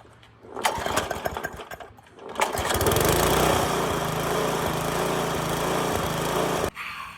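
Gas lawn mower engine starting on a new spark plug: it sputters briefly about half a second in, then catches at a second attempt and runs steadily for about four seconds before cutting off abruptly near the end.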